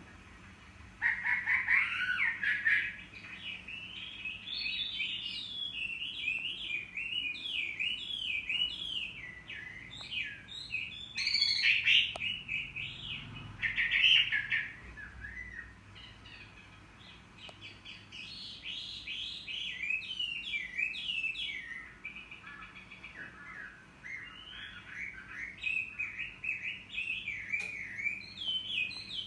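Chinese hwamei singing: a long run of varied, fast-changing whistled phrases. It starts about a second in and pauses briefly around the middle.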